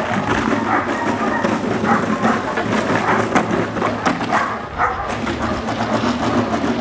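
Dogs barking in short, irregular bursts over steady background noise.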